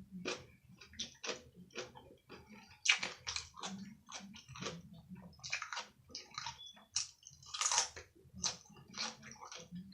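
Close-miked mouth sounds of a person chewing food: a run of irregular wet, crunchy chews.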